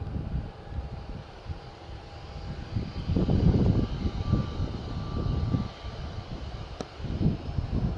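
Jet airliner engines running, a low rumble that swells about three seconds in, with a thin steady whine over it for a few seconds.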